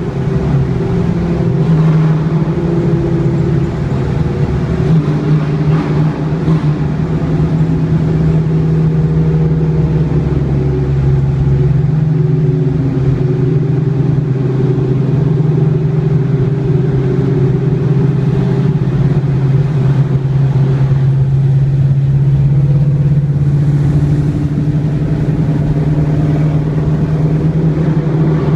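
Car engine running steadily at a near-constant pitch, its note shifting a few times; a deep low hum drops out about twelve seconds in.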